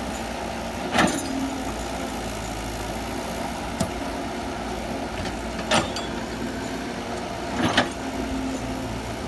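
Excavator engine running steadily, with a few sharp knocks over it, a double one near the end.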